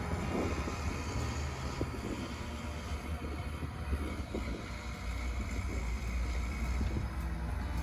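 Diesel engine of heavy harvest machinery running with a steady low drone.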